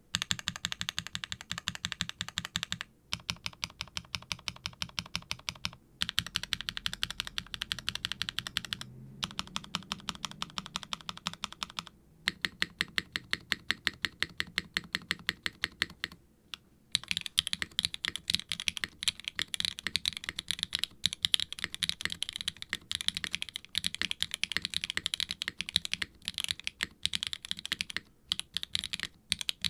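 Typing on a HIBI June R3 mechanical keyboard with Swagkeys Ghost Dragon linear switches (POK top housing, nylon bottom housing, POM stem), a FR4 plate and GMK double-shot ABS keycaps in an undampened silicone case, giving a crisp, clacky sound. Fast runs of keystrokes break off briefly about every three seconds, then give way to a denser, unbroken stretch of typing for the last dozen seconds.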